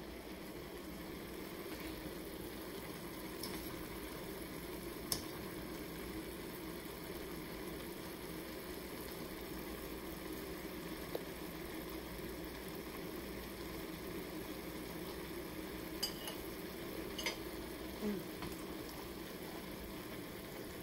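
Purple cabbage sizzling steadily as it sautés in a stainless steel skillet, with a few brief clicks over it.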